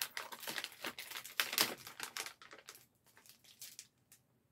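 Paper gift wrapping crinkling as it is handled and unwrapped by hand: dense rustling for the first two seconds or so, thinning to a few scattered crackles that stop shortly before the end.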